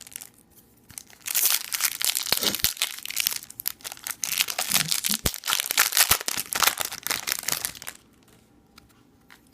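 Foil trading-card pack wrapper being torn open and crinkled by hand: a dense crackling rustle that starts about a second in and stops about eight seconds in.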